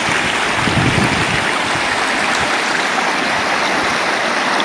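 Shallow river water rushing steadily over a stony riffle.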